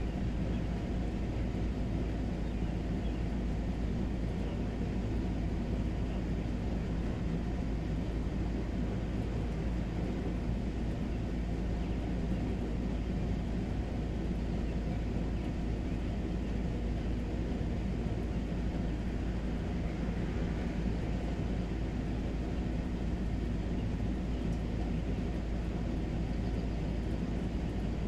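Steady outdoor background noise with a constant deep rumble and no distinct events.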